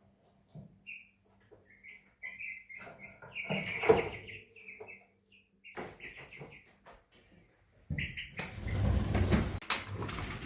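Chicken chicks about three weeks old cheeping in a brooder box in short high peeps, with a knock about four seconds in. From about eight seconds in, a steady noise of falling rain takes over.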